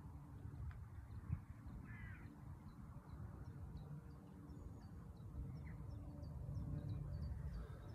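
Faint birds calling: many short high chirps, with a louder call about two seconds in and another just before six seconds, over a low steady rumble. A single short knock about a second in.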